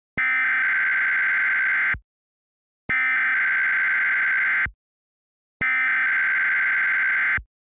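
Emergency Alert System SAME header: three identical bursts of rapid, buzzy digital data tones, each almost two seconds long, with short silent gaps between them.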